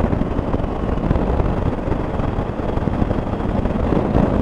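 KTM 250 Adventure's single-cylinder engine running at road speed as the bike slows, under a steady rush of wind on the action camera's microphone.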